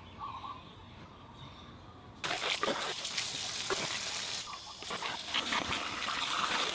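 Water from a garden hose starts suddenly about two seconds in, running and splashing onto concrete and over plastic syringe parts as they are rinsed and scrubbed. Before it, only a few faint bird chirps.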